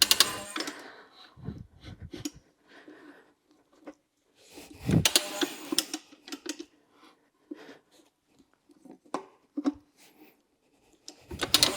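Irregular clanks, knocks and scraping from a manual motorcycle tire changer as a new tire is worked onto a spoked rear rim, with louder bursts at the start, about five seconds in, and near the end.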